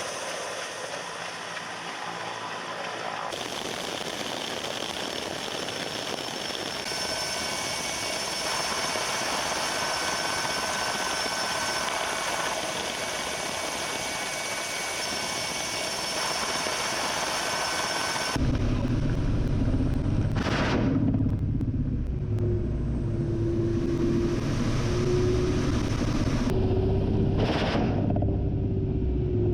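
Ka-52 attack helicopter's turbine engines and coaxial rotors running, first as a hissing noise with steady high whines, then, after an abrupt change about 18 seconds in, as a heavy low rumble with a steady hum. Two brief sharp noises cut across the rumble, about two and nine seconds after the change.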